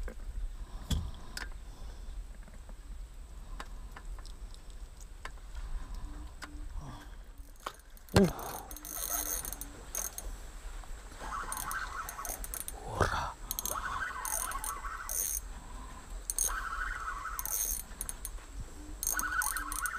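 Spinning reel being cranked in short spells, its gears whirring and ticking, with a sharp knock a little before halfway and a softer one about two-thirds in.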